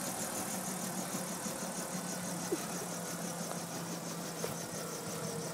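Landed helicopter with its rotors still turning and its engine running on the ground: a steady low hum under a faint, even, high-pitched pulsing about six times a second.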